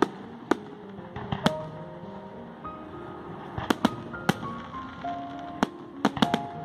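Aerial firework shells bursting in sharp bangs, about a dozen at irregular intervals, some in quick runs of two or three, with music playing underneath.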